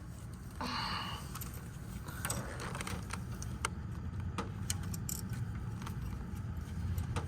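Small clicks, taps and rustles of a spark plug boot and ignition coil being worked down onto a spark plug by hand, over a low steady rumble.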